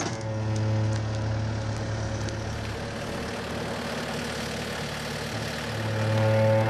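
Bobcat A300 skid-steer loader's diesel engine running steadily while its forks lift a heavy sawn elm slab. It grows a little louder near the end.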